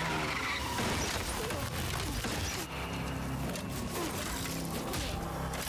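Soundtrack of a TV action scene: a dense mix of mechanical sound effects with music underneath.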